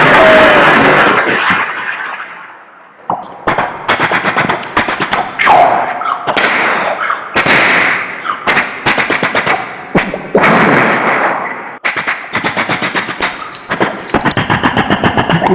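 Vocal imitation of battle sounds made with the mouth: a loud blast-like rush of noise dies away over about two seconds, then long bursts of rapid machine-gun fire follow.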